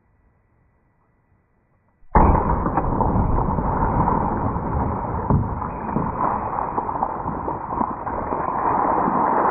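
After about two seconds of near silence, a Glock 17 pistol fires a 9 mm round underwater in a plastic tote: one sudden bang as the tote bursts. Water then gushes and splashes out and keeps running over the board.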